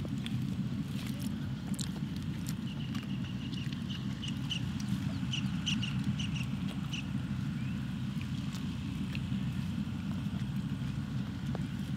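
A steady low mechanical hum, like a distant engine or motor running. A bird sings a quick series of short, high chirps from about three to seven seconds in.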